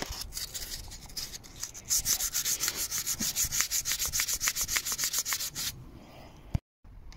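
Sandpaper rubbed by hand over the curb-damaged rim of an alloy car wheel, taking down the scuffs. Light scraping at first, then about two seconds in it becomes fast, even back-and-forth strokes, several a second, which stop near the end.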